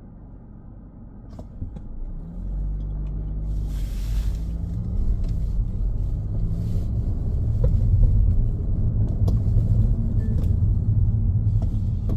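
Car driving on a road: a low engine and tyre rumble that grows louder from about two seconds in, the engine note rising and falling several times.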